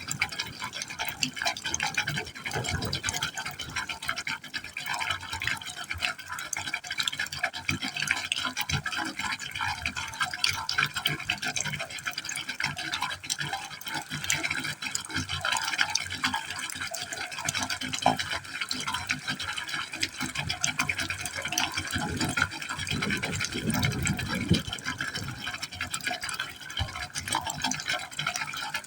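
Water falling steadily into a hole in a pipe: a continuous splashing and gurgling of water into water, with a low hollow rumble welling up now and then.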